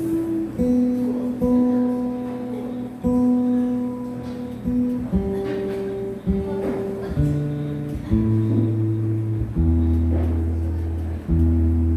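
Instrumental music led by acoustic guitar: held chords that change every second or so, with a deep bass line coming in near the end.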